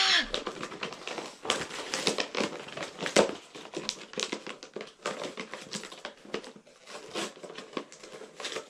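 Toy packaging being torn open and handled, crinkling and rustling in quick, irregular crackles.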